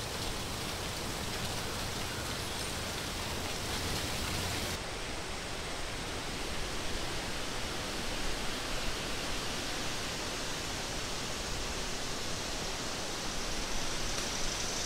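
Steady rushing noise from a laid-in outdoor ambience track, with no distinct events; its highest hiss drops away about five seconds in.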